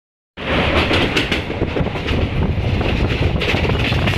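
Mithilanchal Express passenger coach running at speed, heard from inside at the barred window: a steady rumble and rush of air with wheels clicking irregularly over the rails. It starts abruptly after a moment of silence just under half a second in.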